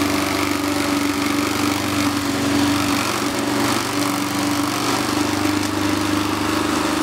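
Walk-behind lawn mower engine running steadily at a constant pitch as the mower is pushed.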